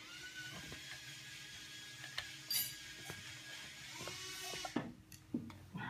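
Ratchet wrench clicking and small metallic tool clinks as a nut on the engine is tightened, with a few separate clicks and pings over a faint steady whine.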